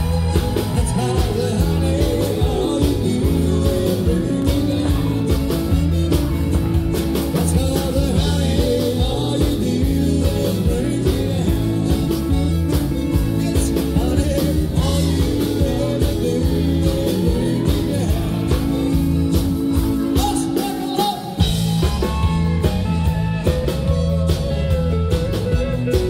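Live country-rock band playing a song with electric guitars, bass guitar and drums keeping a steady beat. The bass and drums drop out for a moment about 21 seconds in, then come back in.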